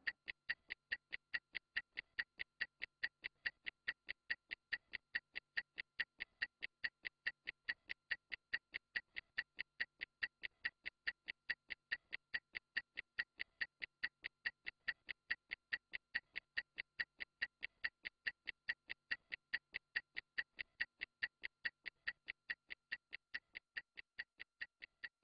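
Stopwatch ticking steadily at about four ticks a second, timing a 30-second interval; the ticks grow fainter near the end.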